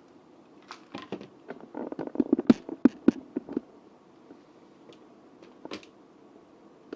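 Plastic blender lid and jar being fitted and seated: a quick flurry of clicks and knocks starting about a second in and lasting a couple of seconds, then one more click near the end. The blender motor is not running.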